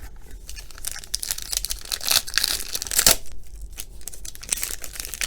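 Plastic foil trading-card pack wrapper being torn open and crinkled by hand, with a sharp snap about three seconds in.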